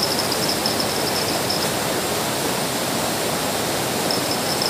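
Steady rush of flowing river water, with insects trilling high above it for the first second and a half and again near the end.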